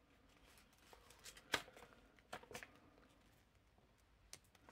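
Near silence with a few faint clicks and taps from small plastic L.O.L. Surprise doll parts being handled while a tiny glittery boot is worked onto the doll's foot; the sharpest click comes about a second and a half in.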